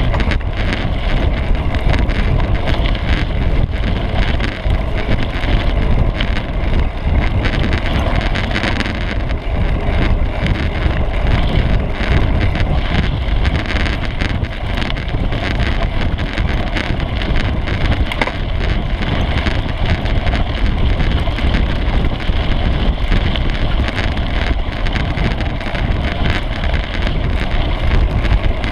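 Trek mountain bike rolling fast over a dirt singletrack, heard from a seat-post-mounted action camera: steady wind rush on the microphone mixed with the rumble of the tyres and frequent small rattles and knocks from the frame.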